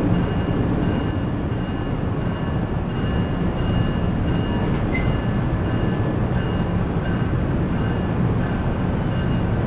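NJ Transit Multilevel passenger coaches rolling slowly past, a steady rumble of wheels on rail with a faint high tone above it and a single light tick about halfway through.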